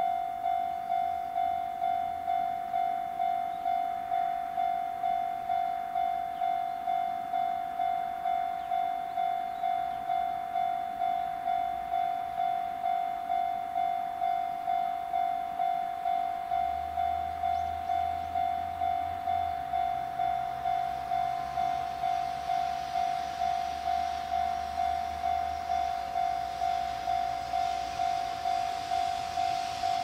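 Railway level crossing warning bell ringing with a steady repeating ding. Near the end the noise of an approaching JR Freight EF210 electric locomotive and its container train grows beneath it.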